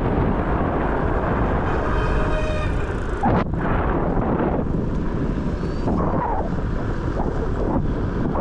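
Wind buffeting the microphone of an action camera carried on a moving bicycle: a loud, steady rumble.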